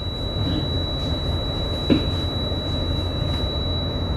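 A steady high-pitched electronic tone from the ship's bridge equipment, held without a break, over the low steady hum of the bridge. A single sharp click about two seconds in.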